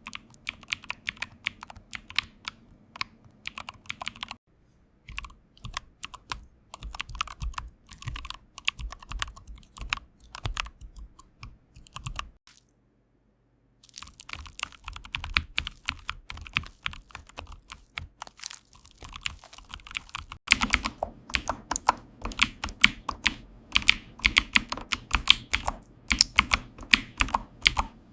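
Computer keyboard being typed on in quick runs of keystroke clicks, with a silent break of about a second and a half around the middle. The keystrokes turn louder and fuller near the end.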